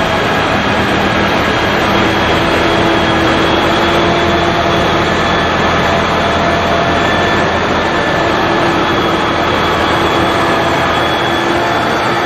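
Loader-mounted snow blower running at full working speed, its impeller throwing snow up the chute into a dump trailer: a loud, steady rushing noise with faint, steady whining tones, like a jet engine.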